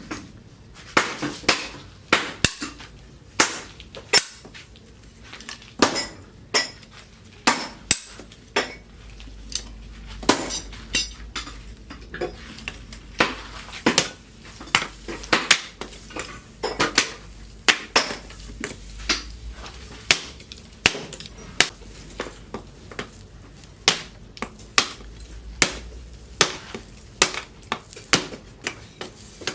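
Blacksmith's hammer striking steel on an anvil, forging leaf-spring steel: sharp metallic blows at about two a second, irregularly spaced, each with a short ring.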